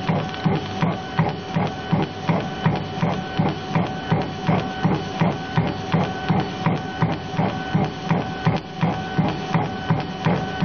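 Mini CNC laser engraver's stepper-driven laser head shuttling back and forth across the work as it raster-engraves, a rhythmic mechanical whirr pulsing about twice a second over a steady tone.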